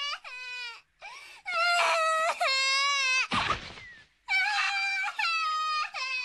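A child wailing and crying: a string of high cries that bend up and down, some short, some held over a second, with short noisy rushes between them.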